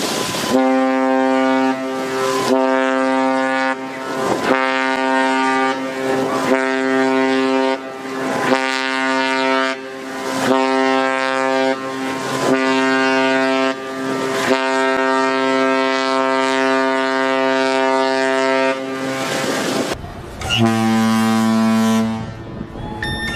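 Cruise ship's horn sounding the general emergency alarm: seven short blasts followed by one long blast, the signal that calls passengers to their muster stations. After a short pause, another horn blast at a slightly lower pitch begins near the end.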